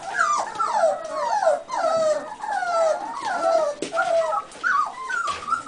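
American Cocker Spaniel puppies whining and whimpering without a break: overlapping high cries that each slide down in pitch, several a second.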